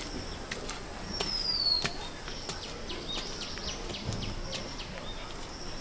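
Birds calling outdoors: one falling whistle a little after a second in, then a quick run of short high chirps in the middle, with scattered faint taps.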